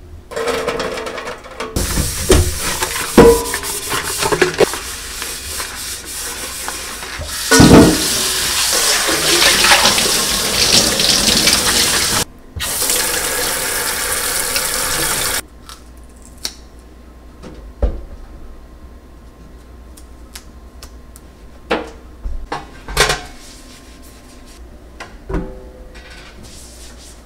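Kitchen tap running into a stainless steel sink and over tomatoes in a stainless steel container, with a few knocks of the metal container. The water stops about halfway through, followed by scattered light knocks and clicks.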